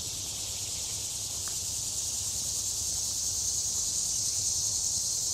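Steady high-pitched drone of an insect chorus, growing a little louder toward the end.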